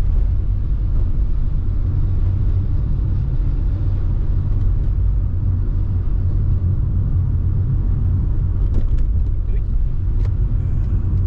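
Steady low rumble of a car driving, engine and tyre noise heard from inside the cabin, with a few faint clicks near the end.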